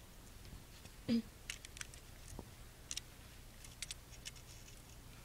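Faint scattered clicks and ticks of small iPhone 3GS parts being handled and pressed into place, with a short vocal sound about a second in.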